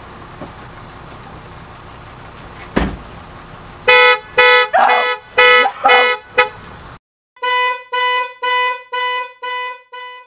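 A single thump, then a car horn honking in a steady on-off pulse about twice a second: five honks, a short break, then five more, the pattern of a car alarm going off.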